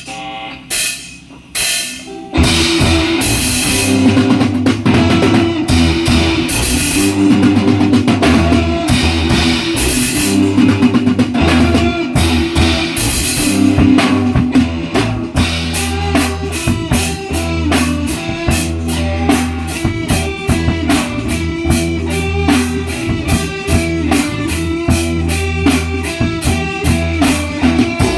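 A band playing rock music on guitar and drum kit for a sound check. A few drum and cymbal hits open it, and the full band comes in about two seconds in and keeps a steady beat.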